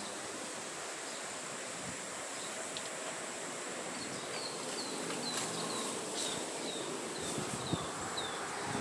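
Countryside ambience: a steady background hiss under a thin, steady high insect whine, and from about halfway through a bird calling a run of short, falling chirps, about two a second.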